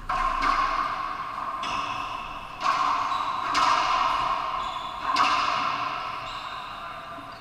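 A racquetball rally: about six sharp hits of the rubber ball off racquets and the court walls, roughly a second apart. Each hit rings on in the enclosed court's echo. The last hit comes about five seconds in, and its ring then fades away.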